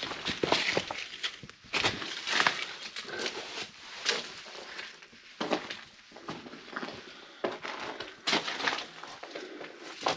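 Footsteps crunching and scuffing over dry leaf litter and loose stone rubble, in an irregular series of crunches.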